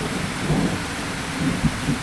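Steady rain in a thunderstorm, with a low rolling rumble of thunder underneath.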